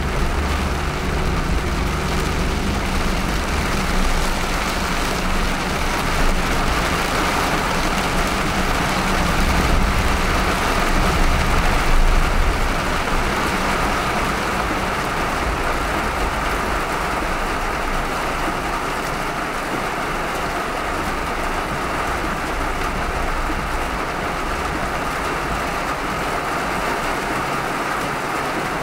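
Car driving on a wet road in heavy rain: a steady hiss of rain and tyre spray over a low road and engine rumble, which fades about halfway through.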